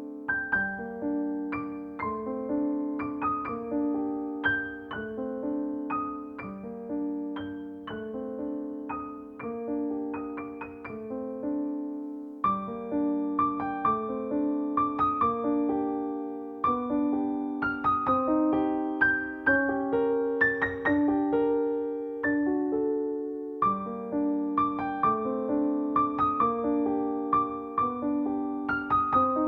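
Background piano music: a gentle melody of struck notes that ring and fade, over a repeating chord pattern.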